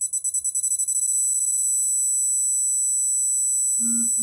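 Digital torque wrench's buzzer beeping in quick, speeding-up pulses as the pull nears the set torque, then holding one steady high-pitched tone about two seconds in: the signal that the set torque has been reached.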